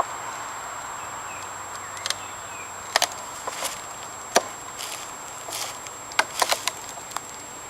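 Irregular sharp knocks and clicks of beehive equipment being handled as a package of bees is opened for installing, about a dozen in all, with a quick cluster near the end.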